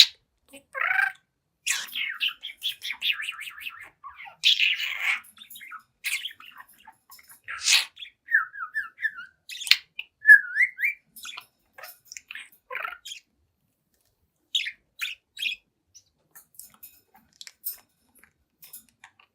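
Budgerigar chattering and warbling, with short squawks, quick chirps and sharp clicks, broken by brief pauses.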